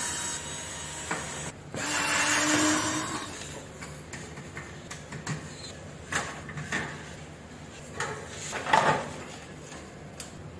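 Cordless drill running in two short spells in the first three seconds, backing screws out of the stainless-steel control panel of an electric range. Then scattered metal knocks and clatter as the panel is worked loose, the loudest near the end.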